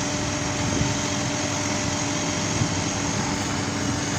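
Diesel engine of heavy construction machinery running steadily, with an even hum and no change in pace.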